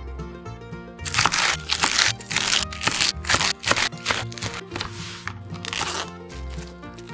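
Kitchen knife chopping komatsuna (Japanese mustard spinach) on a wooden cutting board: a quick run of crisp, crunching chops, several a second, starting about a second in and stopping near the end, over steady background music.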